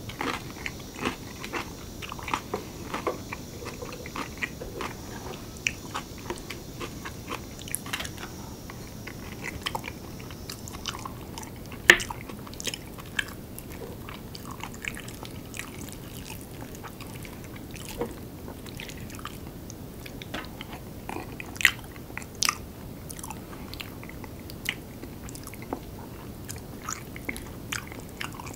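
Close-miked chewing and mouth sounds of a person eating curry rice, with frequent soft clicks and a few sharper clinks of a spoon against a ceramic plate.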